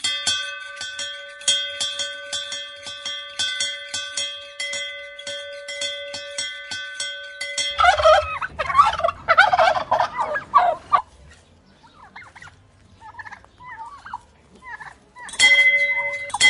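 A dinner bell rings with rapid repeated strikes for about eight seconds. A flock of turkeys then breaks into loud gobbling, which thins out to scattered fainter gobbles. The bell is struck again near the end.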